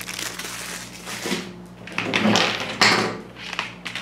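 A thin plastic bag crinkles as it is handled, followed by several irregular rustles and knocks of hard plastic toy-track pieces being picked up.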